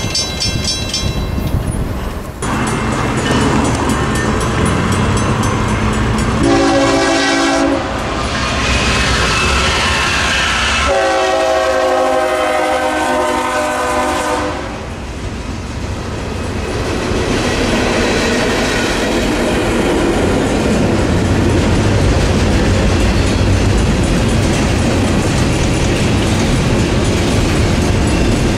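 Railroad crossing bells ringing briefly, then the steady rumble and clatter of a BNSF double-stack intermodal train passing close by. Over it the lead GE ES44C4's Nathan K5HL chime horn sounds twice: a short blast about seven seconds in and a longer one about four seconds later.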